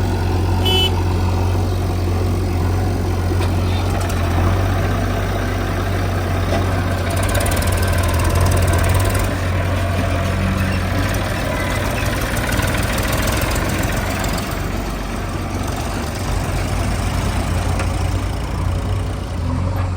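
Heavy diesel engine running with a steady low hum. It works harder, with a fuller, brighter sound, from about a third of the way in to past the middle, then settles back.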